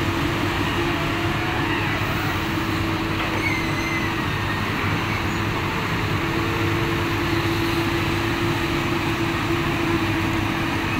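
Komatsu hydraulic crawler excavator working: its diesel engine runs steadily under load with a continuous tone over it while it swings a bucket of ditch mud to a dump truck and back. The tone drops out briefly about four seconds in, then returns.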